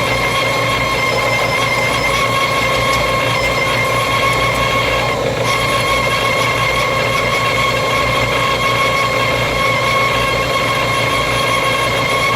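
A machine running steadily: a constant low hum with a steady whine over it, unchanging throughout.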